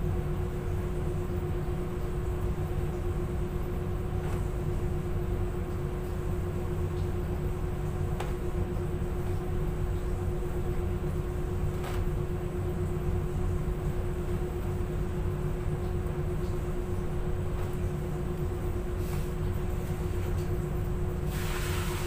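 Steady machinery drone of a commercial laundry room (running industrial washers and ventilation), a low rumble with one constant mid-pitched hum, broken only by a few faint clicks and a short rush of noise near the end.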